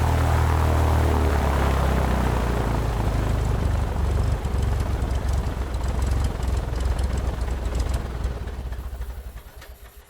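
Airplane engine with a low, steady drone that turns into a fluttering pulse after a couple of seconds, then fades away over the last two seconds.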